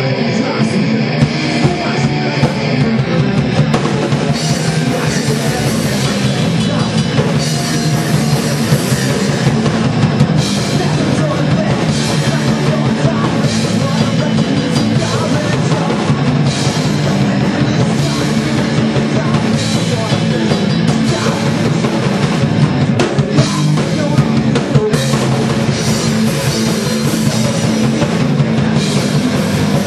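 Punk band playing live: a distorted electric guitar, then the drum kit and the rest of the band come in about three seconds in and play on loud and fast.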